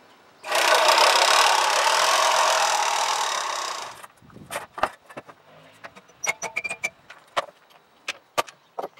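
Cutting reel of an AL-KO 380 HM Soft Touch reel mower spinning with a steady whir, which fades a little and stops suddenly about four seconds in. After that come sharp clicks and knocks as the plastic hubcap is pried off a wheel.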